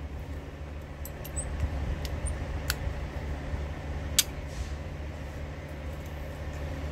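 A vehicle engine idling, a steady low rumble, with a few sharp metallic clicks of hand tools on the air-line fittings, the clearest two about a second and a half apart near the middle.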